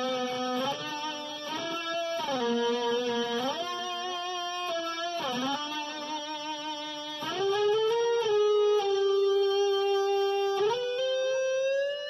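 Electric guitar, a Dean Switchblade ML, sounded with an EBow: long sustained single notes with no picked attack, sliding up and down between pitches every couple of seconds.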